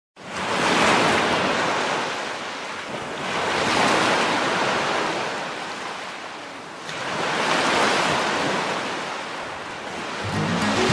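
Ocean surf washing up a beach, swelling and fading about every three seconds, four swells in all. Music comes in just before the end.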